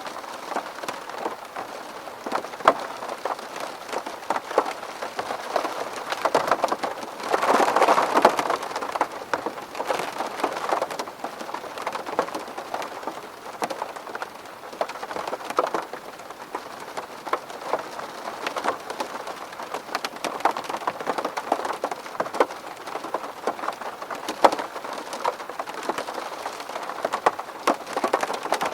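Rain falling on a window pane, many separate drops hitting the glass over a steady hiss of rain. The rain comes heavier for a couple of seconds about seven seconds in.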